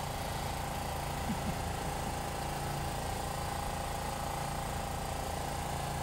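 A steady engine drone, like an engine idling, with a constant hum.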